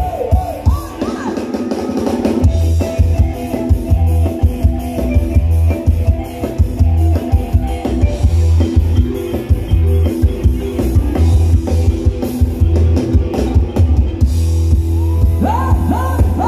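Live band playing upbeat Thai ramwong dance music: a drum kit keeps a steady beat over a heavy bass line. A singing voice slides in near the end.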